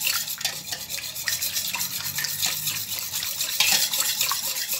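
Milk, eggs and ghee being stirred by hand in a stainless-steel mixing bowl: a wet swishing with irregular light scrapes and clicks of the utensil against the metal.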